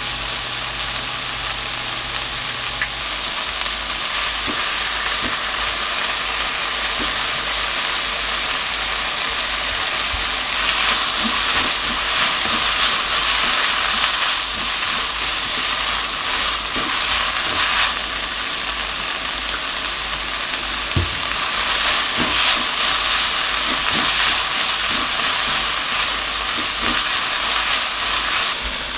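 Food sizzling as it fries in a hot pan, with a utensil stirring and tapping against the pan now and then. The sizzle swells louder twice, about a third of the way in and again past two-thirds.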